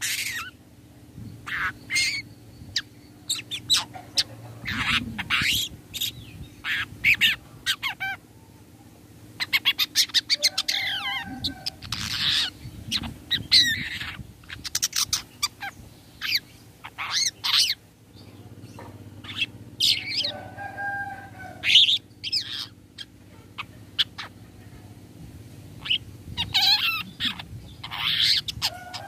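Long-tailed shrike (cendet) singing a varied song of short harsh calls and squeaky high notes with pauses between phrases. About ten seconds in, it gives a fast rattle of clicks.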